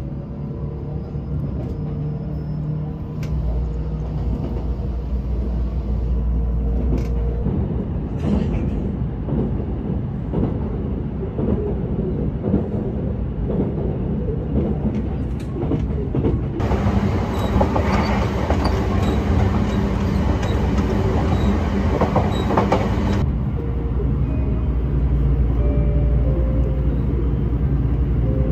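Train running along the track, heard from inside the passenger car: a steady low rumble with rushing noise that grows louder and brighter for several seconds past the middle.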